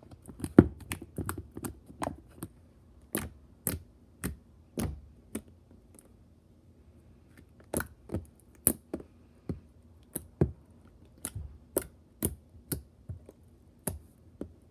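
White glue slime being poked and squeezed by hand, trapped air popping out in sharp, irregular clicks, with a short pause about halfway through.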